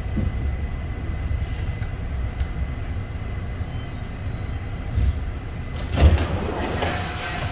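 New York City subway train running, a steady low rumble from the wheels and track. There are two heavy knocks about five and six seconds in, and a hiss near the end.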